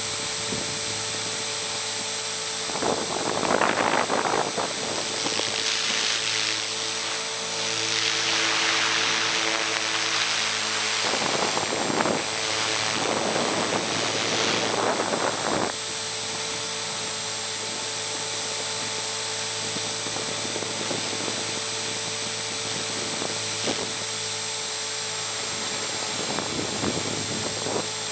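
Align T-Rex 450 Sport electric RC helicopter in flight, heard from its onboard camera: a steady high whine of the motor and rotor, with louder swells of rushing air about three seconds in and again from about eight to sixteen seconds.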